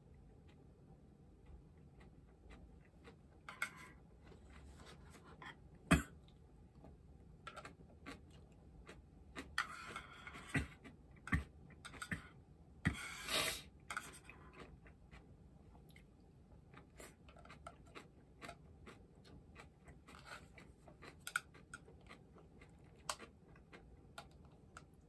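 Eating at a table: chopsticks clicking and scraping against ceramic dishes, with chewing. A sharp knock about six seconds in is the loudest sound, and there are clusters of short scraping sounds around ten and thirteen seconds.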